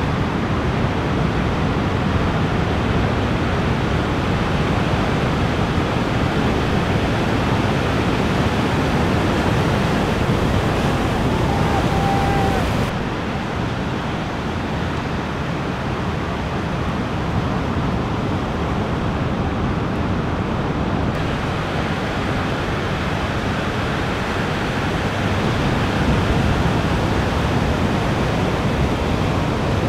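Ocean surf breaking and washing ashore as a steady rushing roar, with some wind noise on the microphone.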